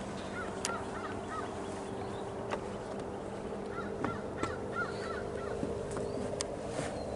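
A bird calling in two quick series of short repeated notes, about a second in and again around four seconds in, over a steady low hum and a few sharp clicks.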